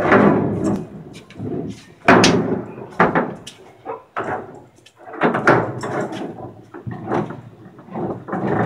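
Heavy steel wire rope barge rigging dragged, flipped and dropped across a steel barge deck: irregular scraping and loud clanking knocks.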